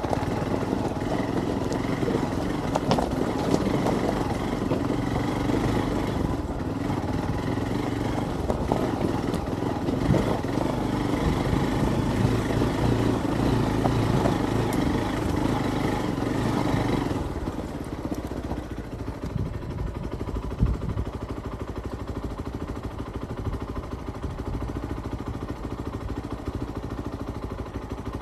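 Hero XPulse 200's single-cylinder engine running under throttle on a rocky track, with frequent clatters and knocks from the bike over the stones. About two-thirds of the way through it drops to a quieter, duller run, and one sharp knock follows a few seconds later.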